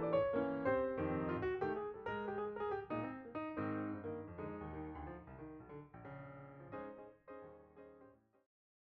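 Outro music: a piano-like keyboard tune playing, fading out gradually over about eight seconds.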